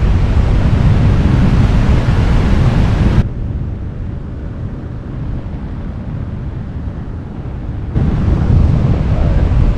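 Wind rushing and buffeting over the microphone in flight, loud and heaviest at the low end. It drops abruptly to a softer rush about three seconds in and jumps back up near the end.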